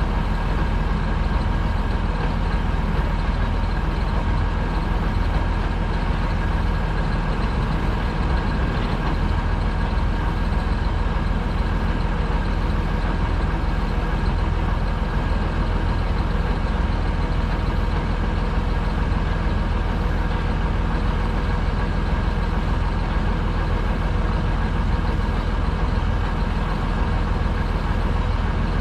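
Heavy farm machinery engine running steadily under constant load, with a steady whine over a low rumble.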